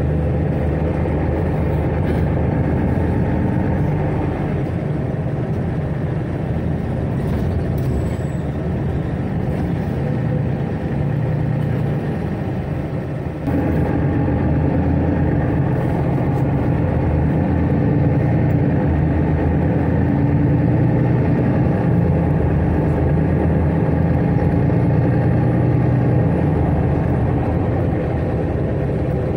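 Interior of a Mercedes-Benz Citaro city bus on the move: a steady diesel engine and road rumble, which gets abruptly louder about halfway through.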